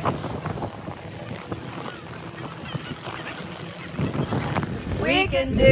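Wind on the microphone over open-air beach ambience. Near the end, a pop song with singing starts.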